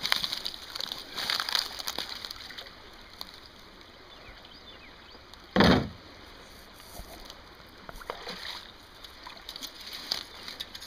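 Shallow creek water sloshing and splashing around a person wading in waders. One short, loud thump comes about halfway through.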